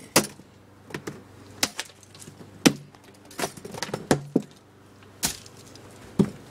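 Lamp shade being smashed on wooden boards: about ten sharp knocks and cracks at uneven intervals, with pieces breaking and rattling.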